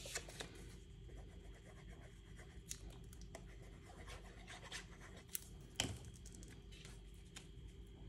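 Faint sounds of cardstock being handled: paper pieces scraping and rubbing on the work surface, with scattered light taps. The loudest tap comes a little before six seconds in.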